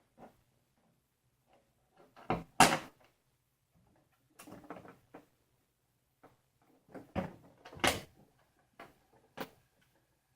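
Knocks and clatters of hand tools and hardware being handled while a power supply is screwed to a panel. There are sharp knocks, loudest as a pair about two and a half seconds in and another pair around seven to eight seconds in, with scraping handling sounds between.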